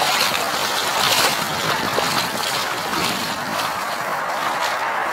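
Rubber boots splashing through shallow floodwater, roughly one step a second, over a steady hiss.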